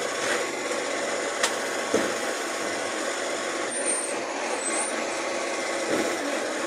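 Garbage truck running steadily. Two sharp clicks come about one and a half and two seconds in, and a brief high squeak near four seconds.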